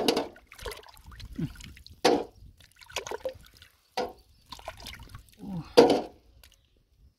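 Wet splashing and squelching of a hand pulling freshwater mussels out of waterlogged mud beside shallow water. The sounds come as about six separate sudden splashes a second or so apart, the loudest near six seconds in.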